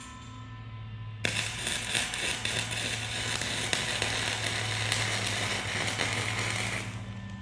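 Electric arc welding on steel: a steady crackle starts suddenly about a second in, runs for about six seconds and stops, over a constant low hum.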